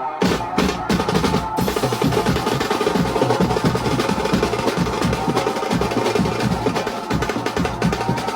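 Maharashtrian banjo street band playing loud, fast drumming with snare-like rolls and bass-drum beats under a steady melody line. For the first second and a half the strokes come separately with short gaps, then they run together into a continuous driving rhythm.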